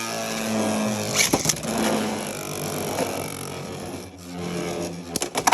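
Two Beyblade X spinning tops whirring and grinding in a plastic stadium, with sharp clashes about a second in and a burst of loud hits near the end as one is knocked out for an extreme finish.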